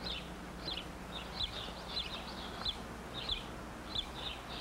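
Small birds chirping, short high notes repeating irregularly two or three times a second, over a faint low hum.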